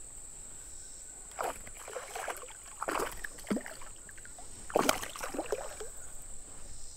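A hooked largemouth bass splashing at the surface of shallow creek water as it is reeled in: several separate splashes, the largest about five seconds in.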